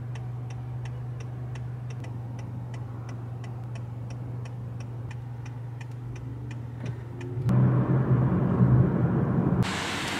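A car's turn signal clicking steadily, about three to four ticks a second, over a low, steady engine hum heard inside the cabin. Near the end the clicking stops and louder engine and road noise come up, followed by a steady hiss.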